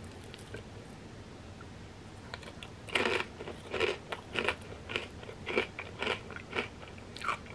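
Close-up crunching and chewing of a fried wonton chip scooped with cheesy crab rangoon dip, starting about three seconds in with about two crunches a second.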